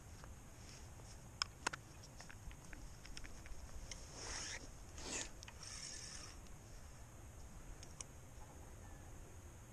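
Close handling of fishing tackle: two sharp clicks, then a few short rustling scrapes between about four and six seconds in, and a single click near eight seconds.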